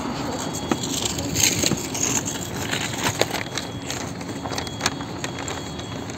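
City street ambience: a steady hum of traffic with scattered light clicks and rustles.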